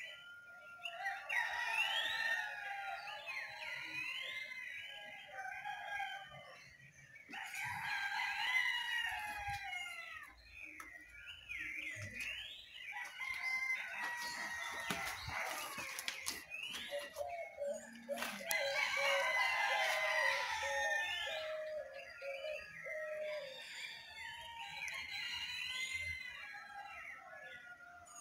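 Dawn chorus: a rooster crowing several times over many songbirds chirping and calling, with quick rising chirps throughout.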